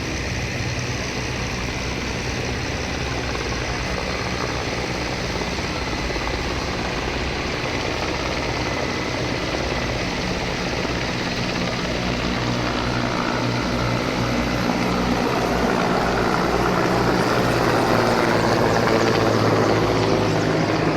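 Steady drone of a low-flying aircraft's engines, growing louder over the last few seconds as it comes closer.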